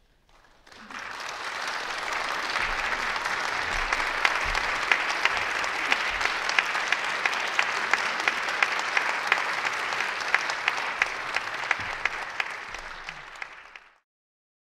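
Audience applauding. The applause swells in about a second in, holds steady, then fades out and stops just before the end.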